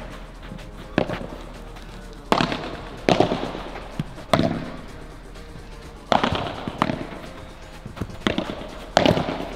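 Padel rally: a ball is struck back and forth with solid padel rackets and bounces off the court and glass, making sharp pops about once a second, each with a short echo.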